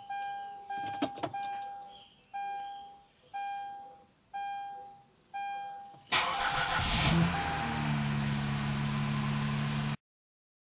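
Hyundai Azera's dashboard warning chime dinging about once a second, then the engine cranks and catches about six seconds in and settles into a steady fast cold idle.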